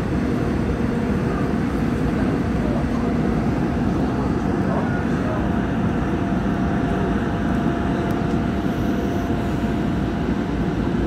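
Incheon Metro Line 1 train running at steady speed through a tunnel: a constant rumble of wheels on rail and running gear. From about three seconds in, a faint steady tone sits above it.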